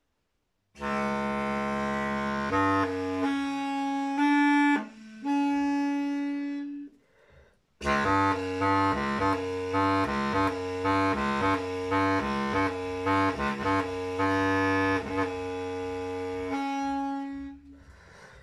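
Homemade bass clarinet-type instrument built from a camping stool's metal tubes with drilled finger holes, played with a reed mouthpiece: a few long, low reedy notes, a short break around the middle, then a quicker run of changing notes.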